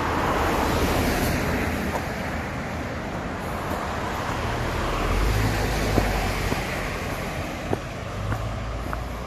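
Outdoor rushing background noise that swells and fades twice, with a low rumble about halfway through. Faint footsteps on a dirt footpath can be heard near the end.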